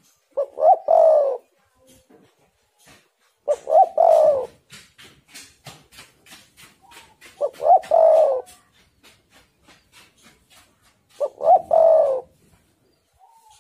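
Spotted dove cooing: four phrases, one about every four seconds, each a few quick short notes running into a longer coo.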